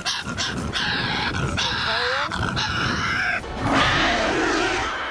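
A Tasmanian devil's harsh, rasping growls, several in a row, followed a little over three seconds in by a louder, longer creature roar: Venom's sound effect, which is built partly from Tasmanian devil recordings.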